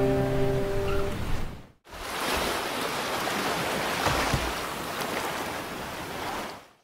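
The last strummed acoustic guitar chord rings out and dies away; after a sudden cut, shallow ocean surf washes over sand at the shoreline with a steady rushing noise that fades out near the end.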